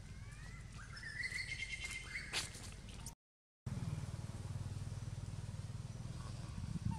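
Outdoor ambience with a low steady rumble underneath. In the first half comes a high, thin call that rises and then holds level for about a second, followed by a sharp click. The sound cuts out completely for a moment just past the middle.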